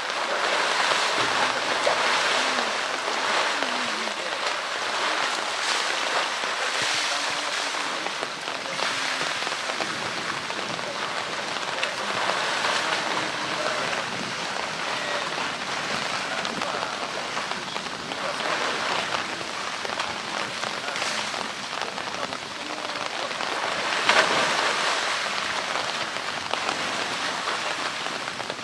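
Continuous splashing and rushing of water in a polar bear's pool, as a stream pours from a wall pipe into the pool and the bear wades through the water. The level rises and falls in surges, with one louder splash late on.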